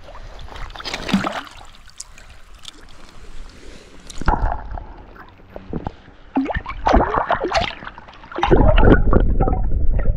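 Water sloshing and splashing around a landing net at the surface. From about four seconds in, the sound turns to muffled gurgling and churning with the microphone underwater, growing loud and rumbling in the last two seconds as the trout is let go from the net.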